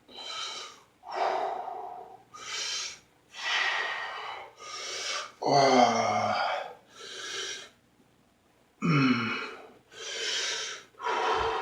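A man breathing hard in a string of about ten loud, quick huffs and gasps. Two deep, voiced belches come about five and a half seconds in and about nine seconds in.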